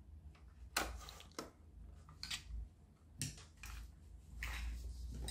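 Faint, scattered clicks and rustles of small plastic toy-car parts being handled, over a low steady hum.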